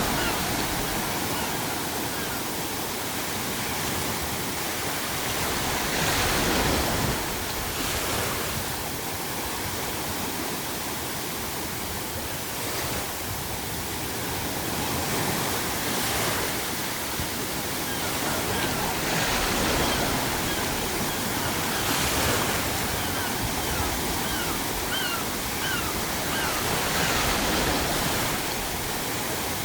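Ocean waves breaking every few seconds over a steady bed of pink noise, with a few short seagull calls, mostly in the second half.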